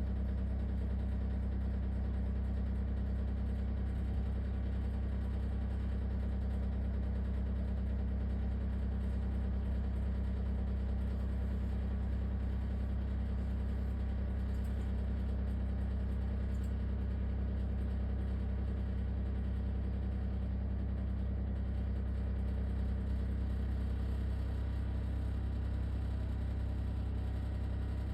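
LG ThinQ WSES4728F wall oven running with a steady, low-pitched rattling drone. This is the fault noise the owner calls a horrible rattling noise.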